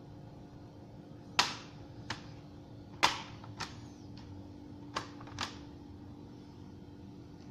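Six sharp clicks and taps of hard plastic parts or small tools on a laptop being handled, coming loosely in pairs, over a steady low hum.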